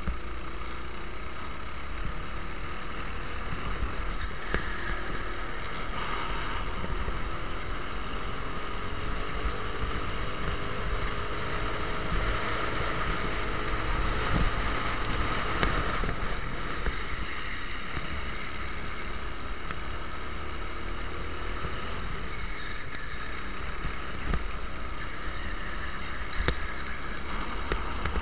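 Racing kart engine running at speed, its pitch slowly rising and falling through corners and straights, heard from an onboard camera with heavy wind and chassis rumble over it.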